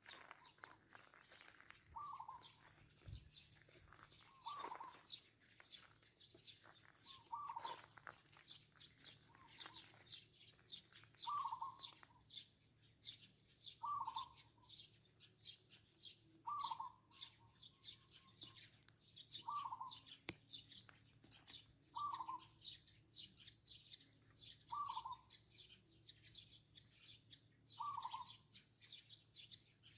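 A zebra dove cooing, one short coo about every two and a half to three seconds, over steady, busy chirping of Eurasian tree sparrows.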